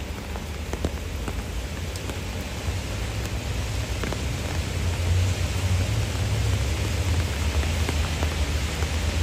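Rain falling on a river's surface: a steady hiss with scattered faint ticks of single drops, slowly getting louder.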